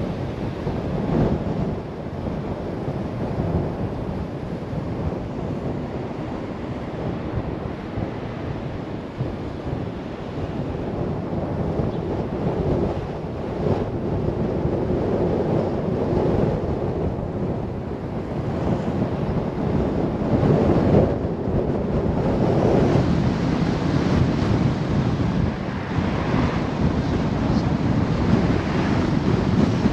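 Wind rushing over the microphone and road noise from a moving car, a steady roar that swells louder at times.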